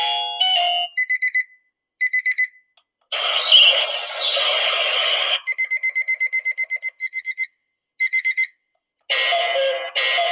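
Samshow digital alarm clock's speaker playing one built-in alarm tone after another, each for a second or two: a short electronic melody, rapid high beeping, a harsh noisy sound lasting about two seconds, fast beeping at about eight beeps a second, then another melody near the end.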